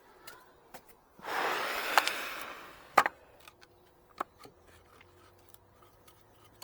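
Handling noise: a scrape lasting about a second and a half, then a sharp click and a few lighter taps.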